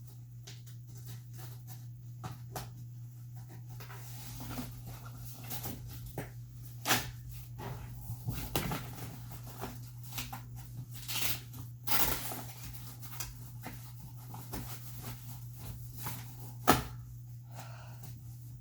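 Scattered knocks, clicks and rustling of a playpin's frame and fabric being handled during assembly, with one sharp knock near the end, over a steady low hum.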